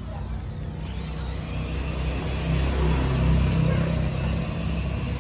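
A motor vehicle engine running with a low rumble, growing louder about three seconds in and easing off near the end.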